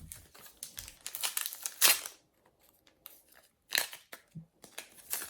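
A trading-card packet's wrapper torn open with a long rip about a second in, followed by a few short, sharp crinkles and rustles of the wrapper and cards being handled.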